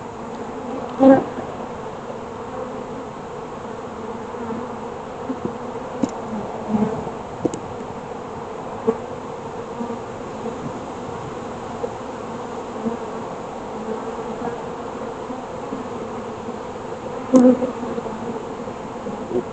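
Honeybees buzzing steadily around an open hive, a dense hum, with a few short knocks partway through and brief louder moments near the start and near the end.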